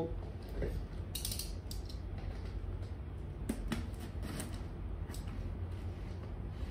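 Small cardboard parcel being handled and pried open by hand: scattered scrapes and crackles of cardboard and paper, in a few clusters, over a steady low hum.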